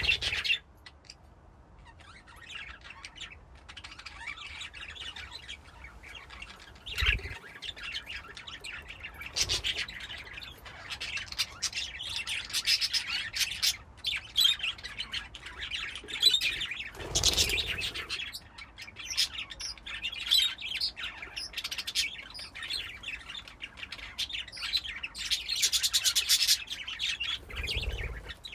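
A flock of budgies chirping and warbling together in a colony cage, many overlapping calls without a break. A few dull thumps come through, the loudest about seventeen seconds in.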